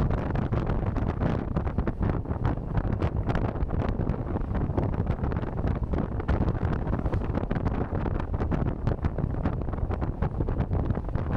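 Hard wind buffeting the microphone on a moving electric motorcycle: a heavy, gusty rumble and rush that flickers rapidly throughout.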